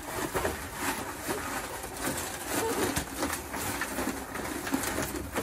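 Soggy cardboard being pulled up and crumpled by hand, a steady run of irregular crackles and rustles.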